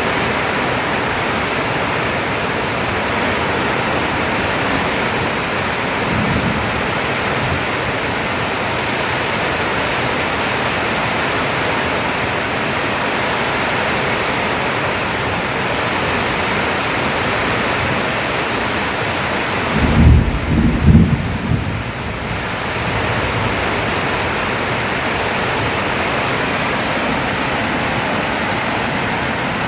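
Steady, even hiss like rain or wind noise, with a few loud low thumps about twenty seconds in.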